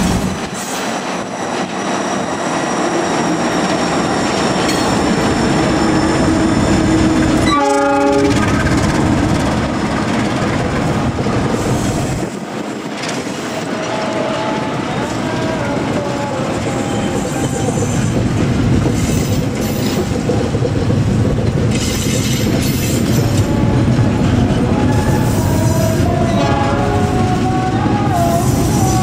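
A diesel-electric locomotive hauls a passenger train past, with steady engine and wheel-on-rail noise. A short horn blast sounds about eight seconds in. Later the wheels squeal with a wavering pitch as the coaches take the curve.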